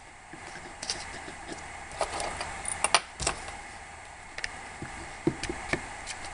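Scattered sharp metallic clicks and taps as a punch drives out the pin at the back of a Glock pistol's trigger assembly, with a heavier knock about three seconds in.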